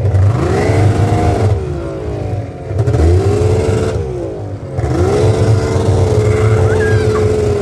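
Snowmobile engine running as it rides, its pitch rising and falling twice as the throttle opens and eases, then held steady at higher revs for the last couple of seconds.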